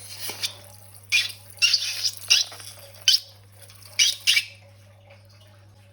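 Slime and balloons being handled: about seven short squishing, crackling bursts over the first four and a half seconds, with a steady low hum underneath.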